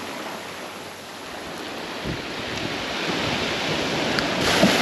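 Surf breaking and washing up a sandy beach, a steady rush that swells louder toward the end.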